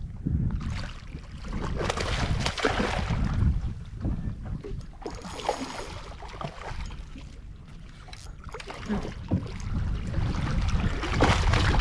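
A hooked small barramundi splashing and thrashing at the surface beside the boat, with wind buffeting the microphone. The noise comes and goes unevenly and is loudest near the end.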